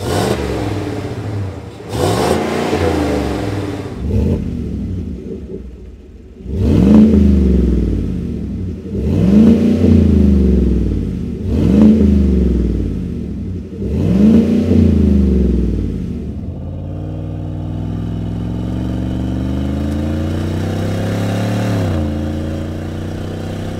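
Chevrolet Silverado 1500's 5.3-litre V8 revved through its exhaust: a few revs on the stock exhaust, then, with the MBRP Armor BLK 3-inch dual side-exit cat-back exhaust and its chambered muffler, four sharp revs that rise and fall back to idle. After that comes one long, steady climb in engine speed under load, which cuts off suddenly near the end.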